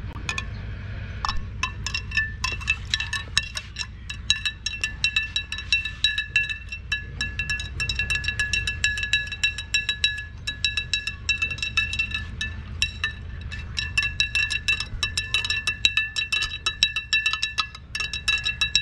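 A metal spoon stirring lemon juice in a glass pitcher, clinking rapidly and repeatedly against the glass with a ringing tone, to dissolve the sugar and salt just added. The clinking starts about a second in.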